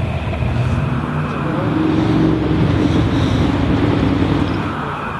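A motor vehicle passing by: a steady engine and road hum that swells to its loudest about halfway through and then fades.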